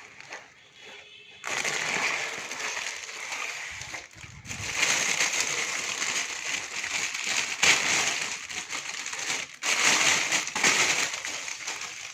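Packaging being handled and crinkled while a steamer-vaporizer is unpacked: a dense rustling that starts about a second and a half in and runs on with two short breaks.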